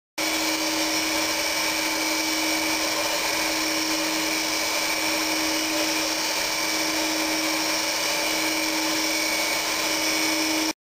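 Open-bowl centrifuge from Simple Centrifuge running at speed: a steady motor-and-bowl whine with a strong hum tone. It starts abruptly just after the beginning and cuts off near the end.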